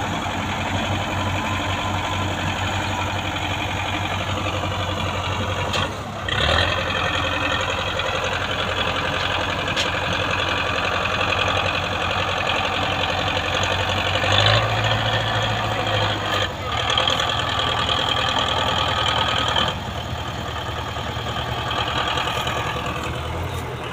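Tractor diesel engines working hard under load as a loaded sugar cane trolley is pushed and pulled out. The engines rev up just after six seconds, surge again through the middle and ease off a few seconds before the end.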